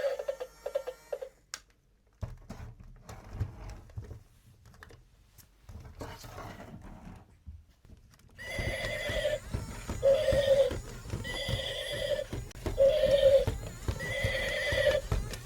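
Interactive toy horse playing recorded neighs and hoofbeats through its small speaker, among clicks of plastic toys being handled. About eight seconds in, a short repeating electronic tune with a steady beat starts and carries on.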